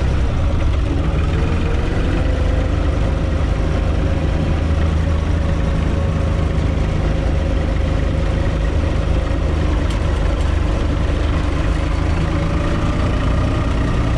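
UTB 445 tractor's four-cylinder diesel engine running steadily under way, heard from inside the cab; the engine note climbs slightly near the end as it speeds up.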